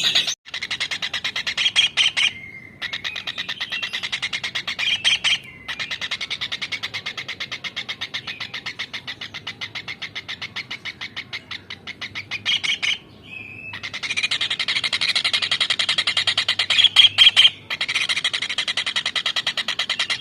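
A kingfisher giving a long, very fast, evenly repeated chattering call, broken by a few short pauses.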